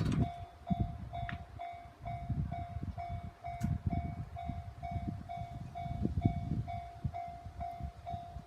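Japanese railway level-crossing warning bell ringing in an even, repeating ding, about two strikes a second, with a train's low, uneven rumble underneath.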